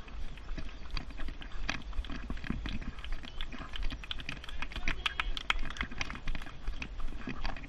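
Quick, irregular clicking and rattling from running on a paved path while pushing a Thule jogging stroller: footfalls and the stroller's frame and wheels, over a steady low rumble of wind on the microphone.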